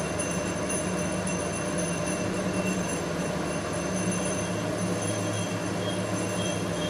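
A steady low rumbling hum with an even noisy wash over it and a few faint, thin high tones. It holds level throughout, with no distinct knocks or clinks.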